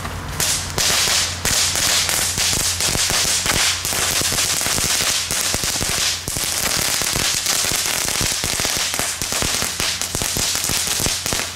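Category 1 crackling-string firework (knetterlint) burning along its length, giving off a dense, continuous crackle of rapid small pops.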